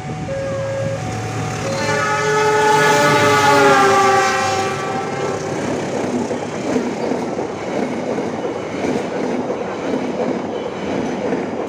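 A level-crossing warning signal sounds in two alternating tones. About two seconds in, the Argo Parahyangan's diesel locomotive gives a long, loud horn blast whose pitch drops slightly as it passes. The passenger coaches then rush by at speed with a steady rumble and clatter of wheels on the rails.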